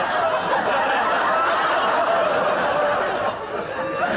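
Audience laughter: many people laughing together, easing off for a moment just before the end.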